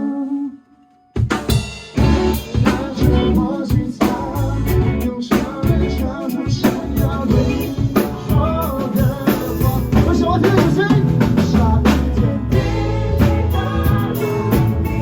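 Rock band playing live: a held chord breaks off, and after a short pause about a second in the full band crashes back in with drum kit, bass and guitars, a voice singing over it.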